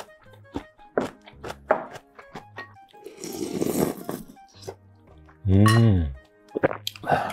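Background music with light clinks of chopsticks and a spoon against ceramic bowls. About three seconds in there is a slurp of soup from a spoon. Near the end comes a loud, low hummed 'mmm' that falls in pitch.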